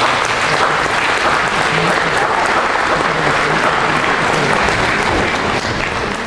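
An audience clapping steadily in applause at the close of a talk.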